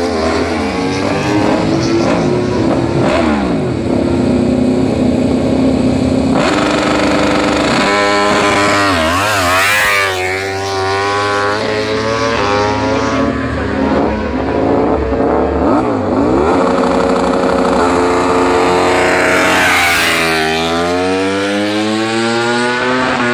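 MotoGP race bikes' 1000 cc four-cylinder engines doing start practice: held at high revs on the line, then launching with the engine note surging up through the gears and falling away down the straight. Several bikes go in turn, with big launches near the start, about ten seconds in and about twenty seconds in.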